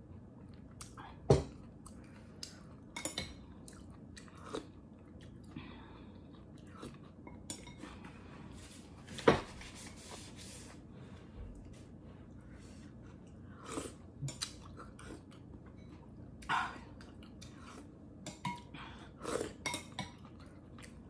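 Close-up eating sounds: chewing, with scattered clicks of a metal utensil against a stainless steel pot. Two louder knocks stand out, about a second in and about nine seconds in.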